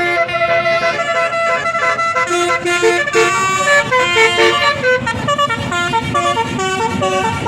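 Bus 'basuri' telolet musical air horn playing a tune, its notes stepping from pitch to pitch several times a second.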